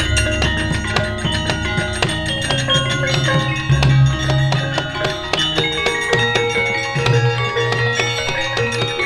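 Javanese gamelan playing: many overlapping ringing notes from metal mallet instruments over a drum.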